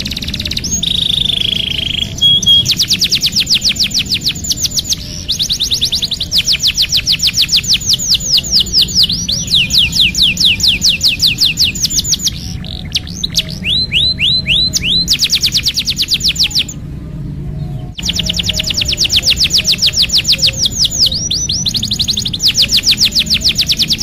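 Domestic canary singing long rolling trills: runs of rapid, evenly repeated notes that each sweep downward, changing from one tour to the next and broken by a few short pauses, over a steady low hum.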